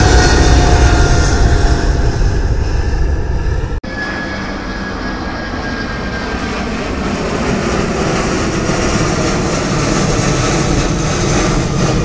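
Twin-engine jet airliner climbing out after takeoff: loud engine noise with a slowly falling whine. About four seconds in, the sound cuts to another jet airliner passing overhead, its engine noise quieter at first and growing slowly louder.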